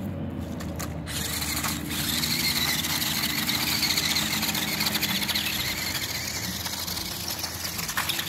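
Small electric motor and plastic gearbox of a $25 toy-grade RC buggy whining steadily, starting about a second in.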